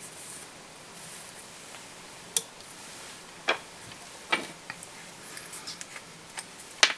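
About half a dozen sharp clicks and taps, spaced irregularly, from fly-tying tools being handled at the vise, the loudest near the end, over a faint steady room hiss.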